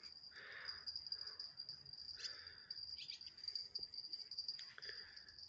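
A steady, high-pitched chirring of insects such as crickets or bush crickets, with a few faint rustles and small clicks.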